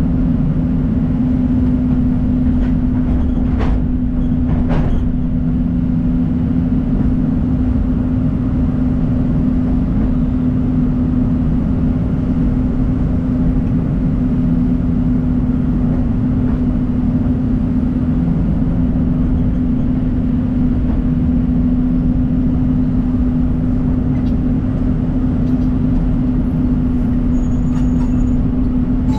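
John Deere 250G excavator running steadily under a constant hum, its diesel engine held at working speed while it digs. Two short knocks come about four and five seconds in.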